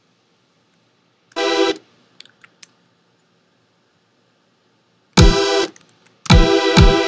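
Short synthesizer hits from an Operator FM synth pad in a drum rack, each a buzzy pitched note: one about a second and a half in, then a louder hit with a low pitch dropping sharply underneath it about five seconds in, and two more in quick succession near the end.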